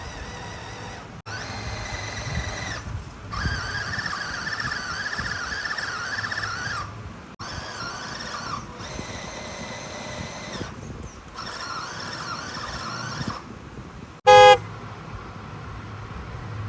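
A small-scale RC crawler's electric motor and gearbox whining, the pitch wavering as it drives over obstacles, in several short stretches that break off abruptly. Near the end there is one brief, loud horn toot.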